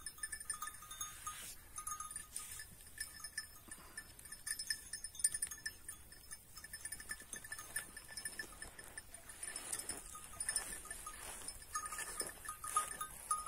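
Small bells on a grazing flock of Kıvırcık sheep clinking faintly on and off, with light scattered crunching as the sheep crop the grass.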